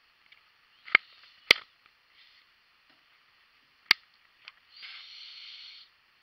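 Handling noise on a small clip-on hat camera: three sharp clicks or knocks as fingers work the camera, about a second in, half a second later and again near four seconds, then about a second of rustling near the end.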